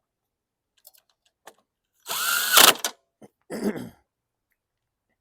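Cordless drill-driver with a 7mm socket bit spinning to drive in a fastener: one loud run of under a second with a slightly rising whine, then a second, shorter and lower run, after a few light clicks.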